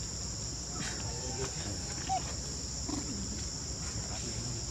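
Steady high-pitched insect chorus, a constant shrill drone, with a brief faint chirp about two seconds in.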